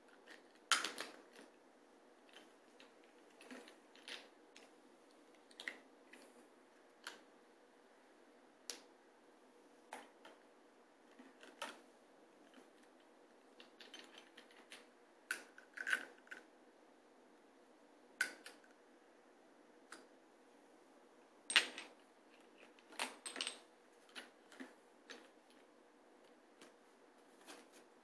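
Glass perfume bottles clinking and clicking against each other as they are picked up and set back down in a basket: irregular light taps about once a second, with a few louder clinks.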